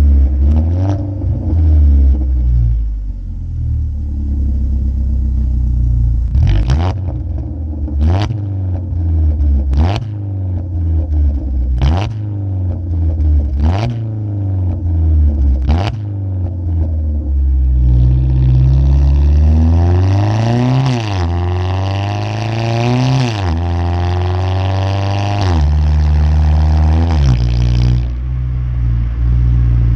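2015 Ford Focus SE's 2.0-litre four-cylinder engine with its muffler deleted, heard while driving: a loud, low exhaust note broken by six sharp pops about every two seconds in the first half. Then it revs up and down in several rising and falling sweeps, louder and brighter.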